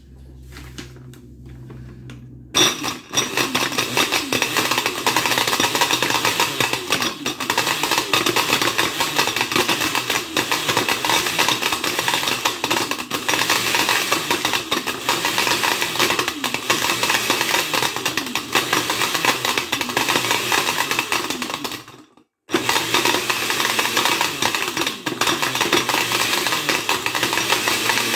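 Countertop blender with a glass jar switched on about two and a half seconds in, its motor running at full speed as it chops up glow sticks, the hard plastic pieces rattling in the jar. The sound drops out for about half a second a little over twenty seconds in, then runs again.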